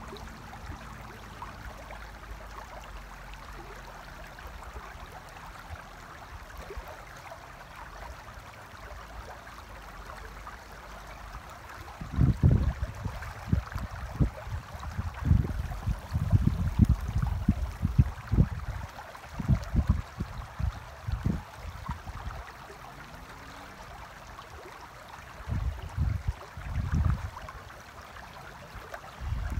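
Shallow river running over stones: a steady rushing hiss. For about ten seconds in the middle, and again briefly near the end, loud low rumbling bursts come and go over it.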